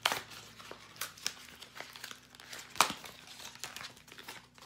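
A Plan B One-Step cardboard carton being torn open by hand: irregular crinkling and ripping with a few sharp tears, the loudest nearly three seconds in.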